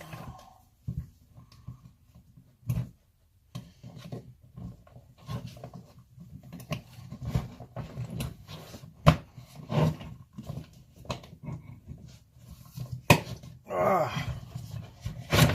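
Irregular clicks, knocks and light scraping of hand tools working on the plastic housing and parts of a Porter-Cable Quicksand sander being taken apart.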